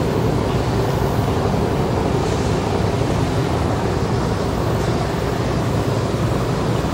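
Small police patrol boat running at speed: a steady engine drone mixed with the rush of its wake.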